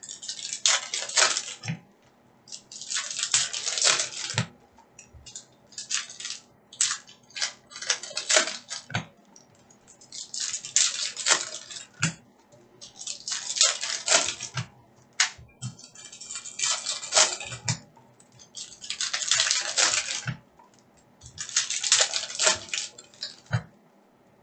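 Foil trading-card pack wrappers crinkling and tearing as packs are opened by hand, in bursts every two or three seconds with short lulls between.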